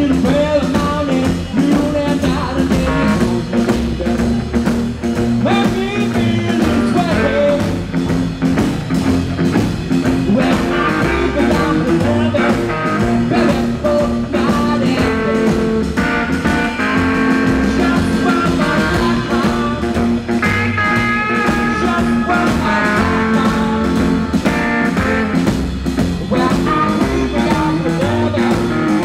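A rockabilly band playing live: a man singing over electric guitar, upright bass and drums.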